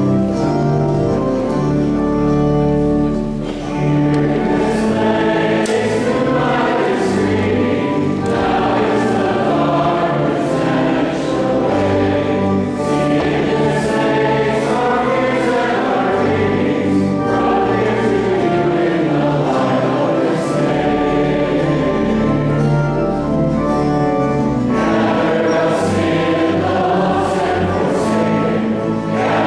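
Church choir singing a processional hymn with held notes, over steady, sustained accompaniment beneath.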